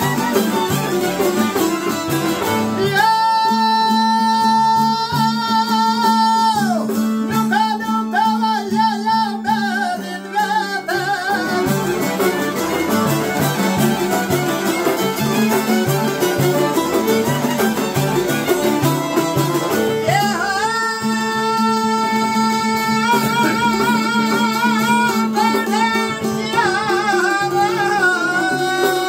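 Albanian folk song: a man sings long, high held notes that break into wavering ornaments, twice, over several long-necked plucked lutes strumming and picking a steady accompaniment.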